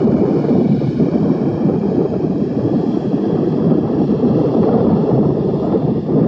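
Airbus A320's jet engines running at low power on the ground: a steady rumble with a faint high whine over it.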